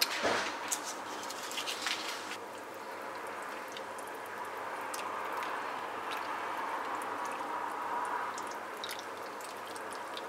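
A spoon stirring a pot of chickpea and leek soup in stock, the liquid sloshing softly, with a sharp knock right at the start and a few clicks in the first two seconds.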